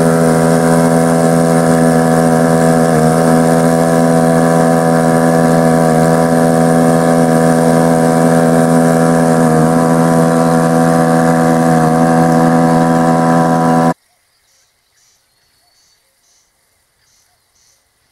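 A motor running steadily at an even pitch, which cuts off suddenly about 14 seconds in.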